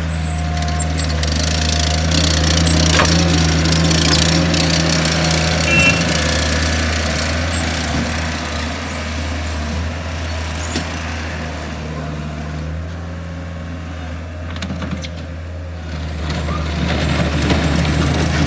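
Caterpillar 257 tracked skid steer loader's diesel engine running while the machine is worked. The engine note swells in the first few seconds, eases off through the middle, and rises again near the end as the load and throttle change.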